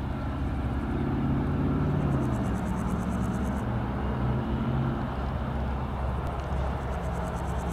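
Airbus A320neo jet airliner on final approach, its engines giving a steady low rumble with a hum whose pitch drops slightly about two seconds in.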